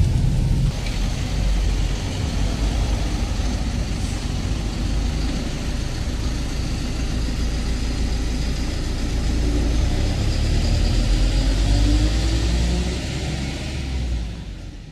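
Tow truck's engine as it pulls away and drives off down the street, growing fainter near the end.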